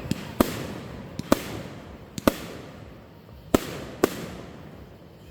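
Aerial fireworks going off: a string of sharp bangs at uneven intervals, about six loud ones, each followed by a rumbling echo that dies away. The bangs thin out toward the end.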